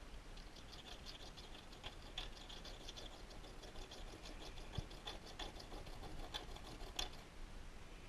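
Brazed carbide lathe tool bit being rubbed back and forth on a small handheld diamond sharpening stone: a faint, rhythmic scratching of about four strokes a second, with a sharper click near the end.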